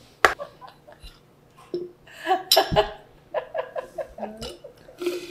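A woman laughing, a run of short quick laughs in the middle. It follows a single sharp tap.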